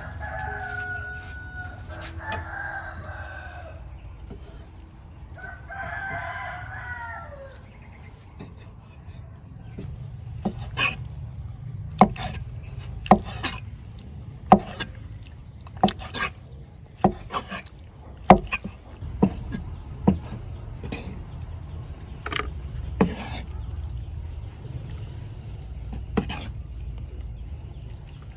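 A rooster crowing three times in the first few seconds, the last crow falling away at its end. From about ten seconds in, a run of sharp knocks follows, irregular and roughly one to two a second.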